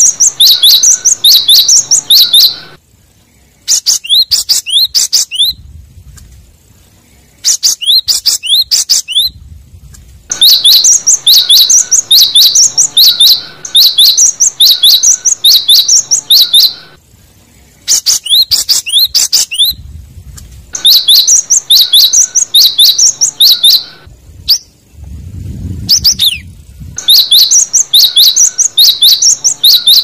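Cinereous tit (gelatik batu) singing: runs of quick, high, sharp notes repeated over and over, each run lasting a few seconds with short pauses between.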